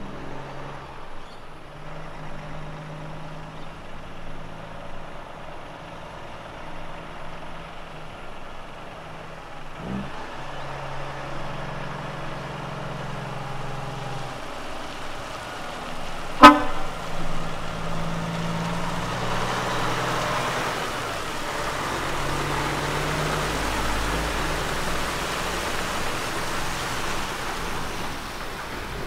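Western Star road train prime mover pulling away and accelerating, its diesel engine note breaking off and resuming several times through gear changes. About halfway a single short, loud horn toot sounds, and in the later part a growing hiss of tyres on the wet road as the truck and its trailers pass close by.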